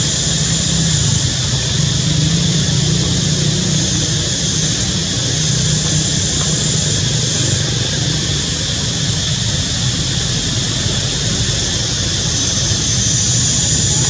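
Steady outdoor background noise: a continuous low engine-like hum under an even high hiss, with no animal calls standing out.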